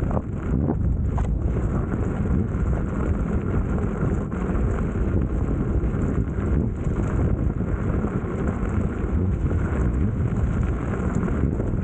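Steady wind rumble on the microphone of a rider moving along a gravel-and-dirt trail on an electric unicycle, mixed with the tyre rolling over the loose surface.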